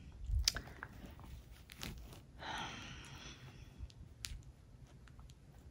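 A dog gnawing on a GoDog Dino Spike plush dinosaur chew toy: faint scattered clicks of teeth on the toy, with a brief rustle of fabric about two and a half seconds in.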